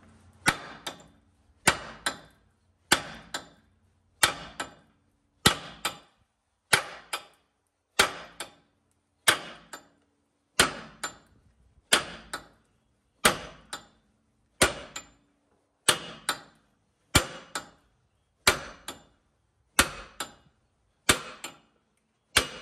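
A sledgehammer strikes the axle nut on the end of a 2006 Ford Explorer's rear axle shaft, driving the shaft back in through the wheel hub. The blows are metal on metal and steady, about one every 1.3 seconds. Each rings briefly and is followed by a lighter second tap.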